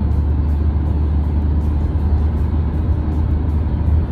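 Steady low rumble of a car driving, heard from inside the car, with background music carrying a regular beat.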